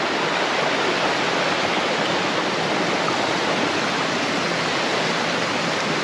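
Small creek running over rocks, a steady, even rush of water.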